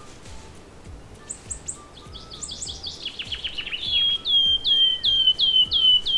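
A songbird singing: a few high chirps, then a fast trill of falling notes, then a run of loud repeated down-slurred whistles, about three a second.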